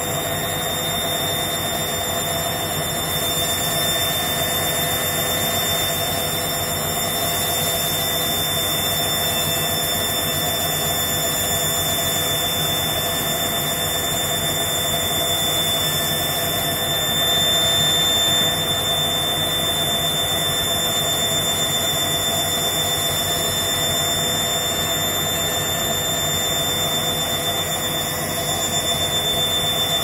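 Hoover front-loading washing machine spinning at a steady speed, with a high, steady motor whine over a rushing drum noise. The drum is full of detergent foam, so this spin is running under the machine's suds-lock for excess suds.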